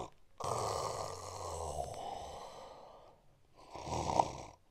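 A man snoring: one long snore with a low rattle under it, then a second, shorter snore about three and a half seconds in.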